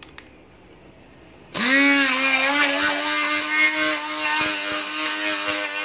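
Hand-held immersion blender switched on about a second and a half in, its motor rising quickly in pitch to speed and then running steadily as it purées cut strawberries in a glass bowl. Before it starts, a couple of faint clicks of the metal blending head against the bowl.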